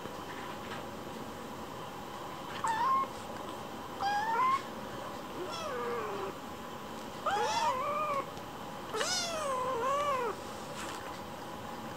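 A kitten meowing five times, the later calls longer and wavering up and down in pitch.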